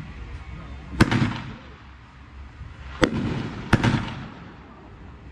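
Mad Ox Watermelon Moonshine 500-gram consumer firework cake firing its shots: one sharp bang about a second in, then two more close together around three and three-and-a-half seconds in, each dying away over about half a second.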